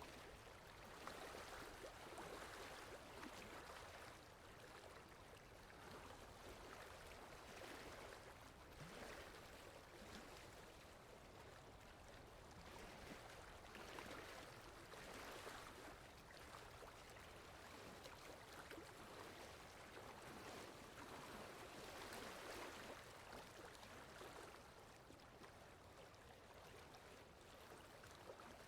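Faint water lapping and gurgling, in soft irregular swells every second or two.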